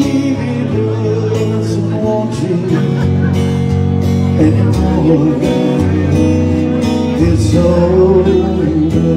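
A man singing live into a microphone while playing an electric guitar through an amplifier, over sustained low bass notes; the sung line wavers with vibrato.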